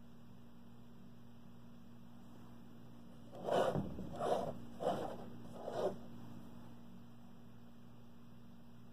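Four short scraping rustles about half a second apart, a little over three seconds in, as the painting's wooden frame is gripped and turned by hand against the wall, under a low steady hum.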